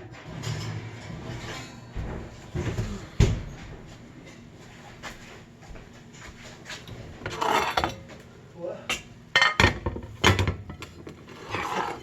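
Kitchen clatter: pots, dishes and utensils knocking and clinking, with a few sharp knocks, the loudest about three seconds in and a cluster near the end.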